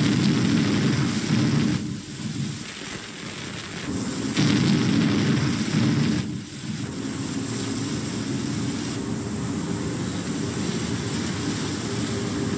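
Battleship heavy guns firing a shore bombardment: two booms, one at the start and one about four and a half seconds in, each rumbling for a couple of seconds, over the steady hiss of an old film soundtrack.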